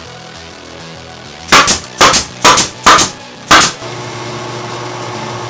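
Nail gun firing five sharp shots about half a second apart. Then, about four seconds in, a Central Machinery drill press starts running with a steady hum.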